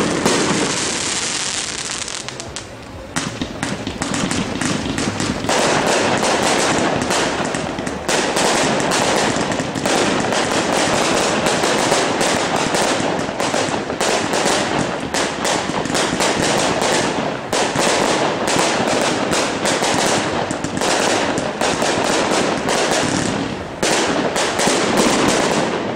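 Fireworks display: a dense, rapid barrage of aerial bangs, many reports a second, after a brief lull about three seconds in.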